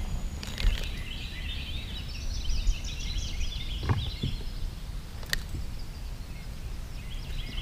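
Small birds chirping and singing over a steady low rumble, with a few sharp clicks.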